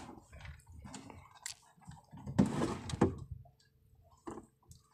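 Wet fishing net hauled by hand over the side of a wooden outrigger boat: scattered rustles and small knocks, with one louder burst of rustling and water noise lasting about half a second, about two and a half seconds in.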